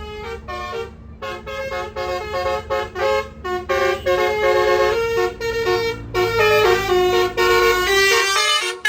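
Bus "telolet" basuri multi-tone horn playing a quick tune of short notes, several horn tones sounding together and stepping between pitches, over a low engine rumble.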